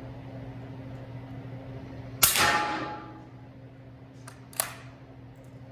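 Suppressed shot from an 8-inch 300 Blackout bolt-action rifle firing 220-grain subsonic rounds through a Thunder Beast 338 Ultra suppressor: a single sharp report that rings away over about a second. A smaller sharp crack follows about two seconds later.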